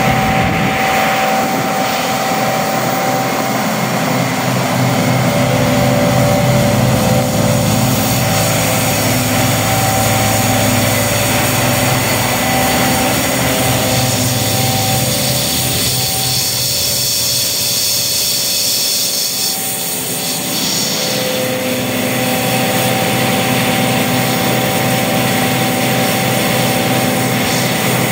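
Walinga 7816D Ultra-Vac grain vacuum running under load while conveying corn: its diesel engine and Walinga 816 positive displacement pump make a loud, steady drone with high whining tones above it.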